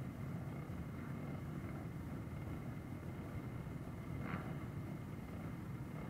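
A motorcycle engine idling with a steady low rumble.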